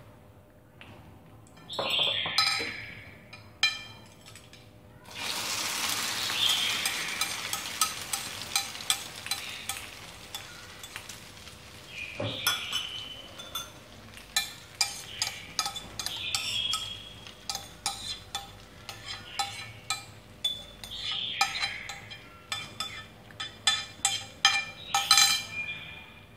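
Beaten egg mixed with chopped lá mơ leaves poured into hot oil in a frying pan: a sizzle starts about five seconds in and fades gradually. All through, a metal spoon clinks again and again against the glass mixing bowl as the mixture is scraped out.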